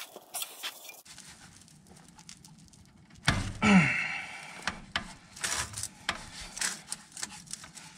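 Hand tool working at the hydraulic oil filter under a Mahindra 1626 tractor: scattered clicks and scrapes of metal, with one loud sound falling in pitch for about a second a little after three seconds in.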